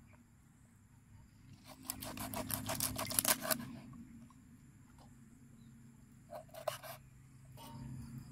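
Kitchen knife cutting through a water snake's scaly body on a wooden chopping board: a rapid run of scraping clicks about two seconds in lasting nearly two seconds, then a shorter burst of cuts past the six-second mark.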